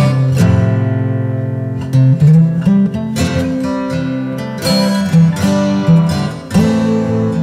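Background music played on acoustic guitar, with plucked notes and strummed chords that ring and fade.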